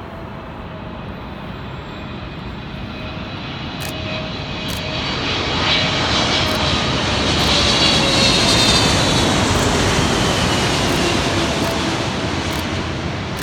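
Boeing 777-300ER with its two GE90-115B turbofans passing by: a jet rumble with a whine that swells to a peak about eight seconds in and then fades as the tones drop in pitch.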